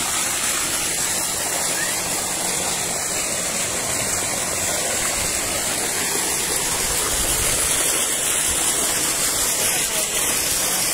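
Tubewell water gushing from an outlet pipe into a concrete tank and spilling over its edge: a steady rush of falling, splashing water.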